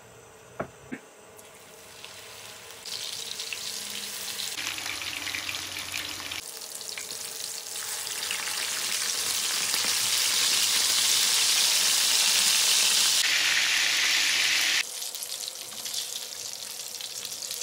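Beef Peshawari kebab patties shallow-frying in hot oil in a frying pan, a steady sizzle that builds up, is loudest a little past the middle, and drops sharply near the end. Two short knocks come about half a second in.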